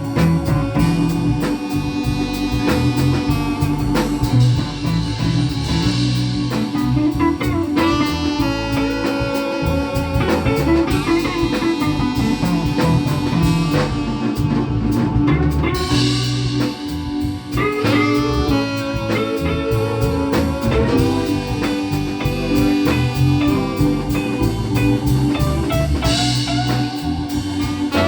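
Live blues band playing an instrumental passage: electric guitar leads over bass and drum kit.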